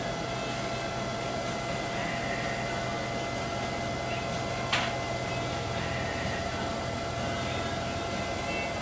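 Steady machine hum holding one even pitch, with a single sharp click about halfway through.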